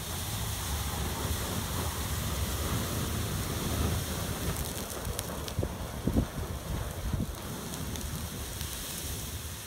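A bundle of twenty sparklers burning together in a big flame, giving a steady spraying hiss with scattered sharp crackles around the middle.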